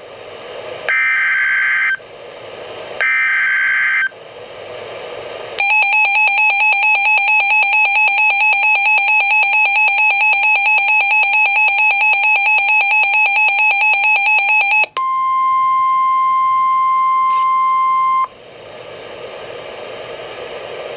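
NOAA Weather Radio Emergency Alert System alert starting. Two short screechy SAME digital header bursts come near the start, then a rapidly pulsing electronic alarm beep runs for about nine seconds. A steady weather-alert tone follows for about three seconds and gives way to radio hiss.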